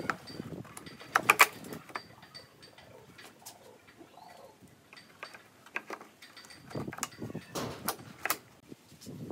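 Sharp plastic clicks and knocks as a round LED recessed downlight is pushed into a hole in a pine board and its spring clips snap into place, the loudest cluster about a second in. Scattered taps follow, with hands rubbing and knocking on the wood near the end.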